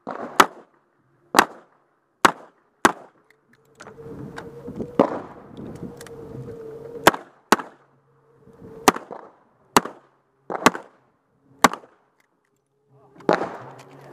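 Semi-automatic pistol firing about ten shots close by, as singles and quick pairs at uneven spacing. A stretch of rustling noise from movement comes about four to seven seconds in.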